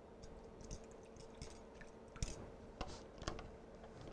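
Faint scattered clicks and light taps from handling a beef broth carton and its plastic screw cap over a small bowl, with a few sharper ticks in the second half.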